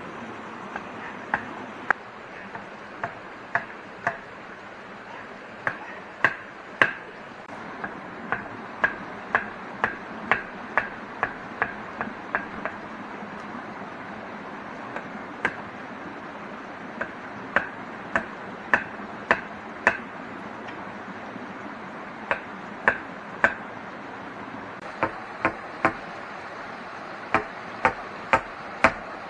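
Chopping wood by hand with a blade: runs of sharp single strikes, about one to two a second, broken by short pauses, over a steady background hiss.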